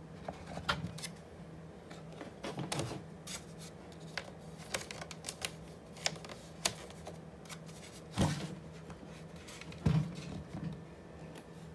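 Handling noise: fingers rubbing and tapping a plastic modem casing, scattered light clicks and rubs, with two louder knocks about eight and ten seconds in, over a faint steady hum.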